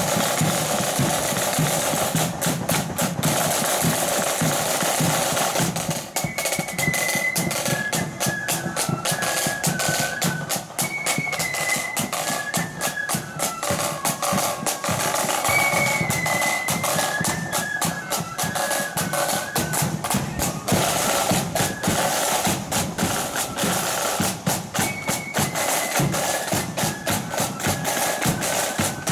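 Loyalist marching flute band playing: side drums and bass drum beat alone for about the first six seconds, then the flutes come in with a high, stepping tune over the drums.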